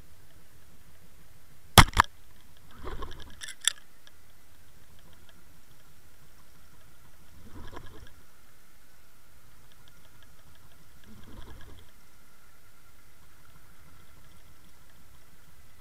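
Muffled sound of an underwater camera being towed through the water on a trolling line: a steady low rumble with a faint thin whine, two sharp clicks about two seconds in, and short rattling bursts every few seconds.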